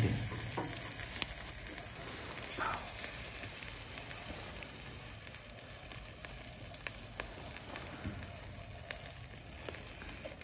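Food sizzling on a barbecue grill over a crackling fire: a steady hiss with scattered sharp pops.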